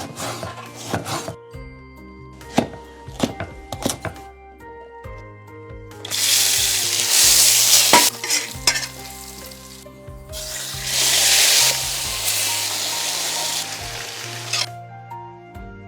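Food frying in hot oil, sizzling loudly in two spells: one starting about six seconds in, the other about ten seconds in. A few sharp knocks come in the first few seconds.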